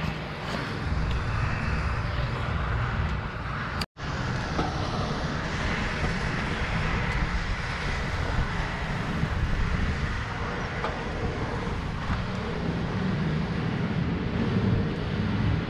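Wind buffeting the bike-mounted camera's microphone as a mountain bike rolls over stone paving and then a concrete street, a steady rumbling noise. It cuts out for a split second about four seconds in.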